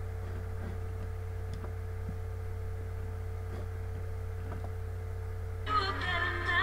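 Steady low electrical hum with a faint steady tone above it and a few faint ticks. About five and a half seconds in, music from the streamed TV channel starts playing.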